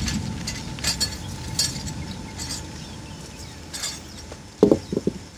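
Scattered sharp metallic clicks and clinks from BMX bicycles being wheeled and handled on railway track, with a brief burst of louder short sounds near the end.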